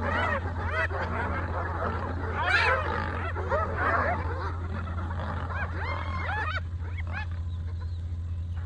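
A pack of spotted hyenas calling over one another while squabbling at a kill, with many overlapping high calls that rise and fall in pitch. The calls are thickest in the first few seconds, flare again briefly past the middle and thin out near the end, over a steady low hum.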